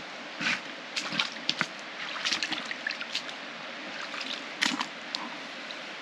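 Water sloshing and splashing at irregular moments as a bag of cans is pulled out of a shallow river, over the steady rush of the flowing river.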